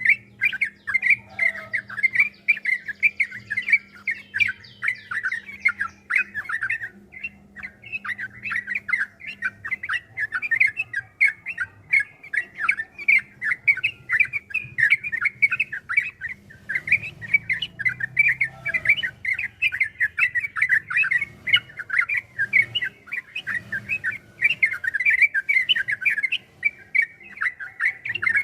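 Yellow-vented bulbul (trucukan) singing a long, fast run of chattering notes. The song is near-continuous, with short breaks about 7 and 16 seconds in.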